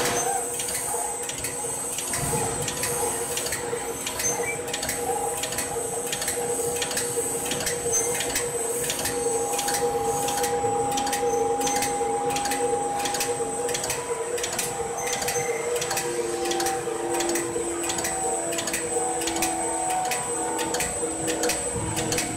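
Chin chin dough cutting machine running: a steady motor hum with regular, rapid clicking from the cutting mechanism, and a faint high whine.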